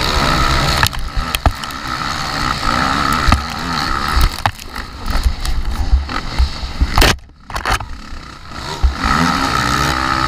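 Racing quad's engine revving up and down as it is ridden hard over a bumpy dirt track, heard from a camera mounted on the quad, with sharp knocks and rattles from the bumps. About seven seconds in the engine drops away for a moment as the throttle is closed, then picks up again.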